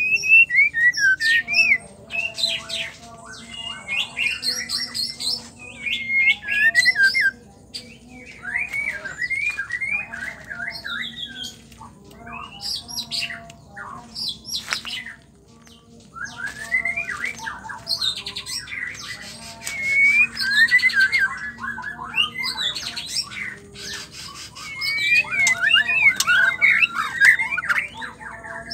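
White-rumped shama singing: fast runs of varied whistled, gliding and chattering phrases mixed with harsh notes. The song comes in bursts with short lulls, loudest near the start, about seven seconds in, around twenty seconds in and near the end.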